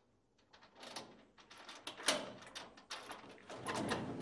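Metal barred door being unlocked and worked open: a series of short metallic clicks and rattles from its lock and latch, growing busier toward the end, with one sharper click about two seconds in.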